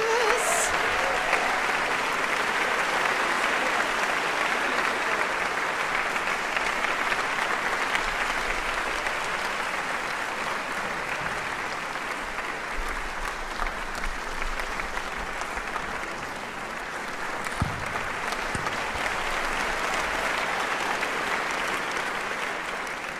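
Large audience applauding steadily; the clapping dips slightly past the middle, swells again, then fades out near the end.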